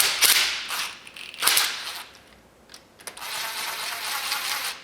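Ratchet loosening the lock bolt of the differential pinion (cross) shaft in a GM 12-bolt rear axle, a bolt that turns out easily. There are two short spells of ratcheting, then a steadier run of about two seconds near the end.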